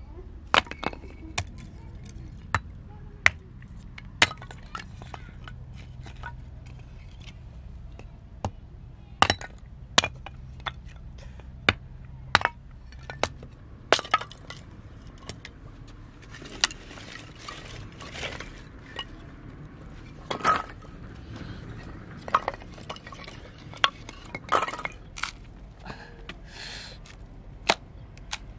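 Hatchet chopping and splitting dry firewood into kindling: a string of sharp, irregular knocks and cracks of the blade striking and splitting wood, about one or two a second.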